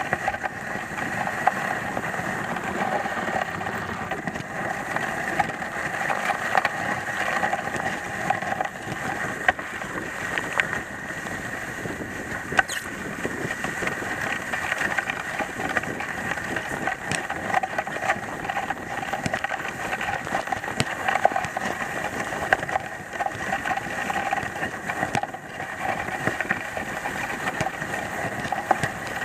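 Dog sled runners sliding over a packed snow trail while the team pulls, a steady scraping hiss with occasional sharp clicks.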